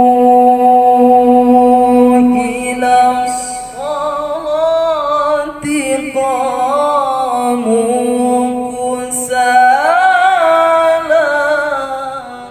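A young man's voice chanting Quran recitation (tilawah) close into a handheld microphone, in the melodic Pakistani haflah style. It holds one long steady note for about the first three and a half seconds, then moves into winding ornamented runs that rise and fall, and fades away at the very end.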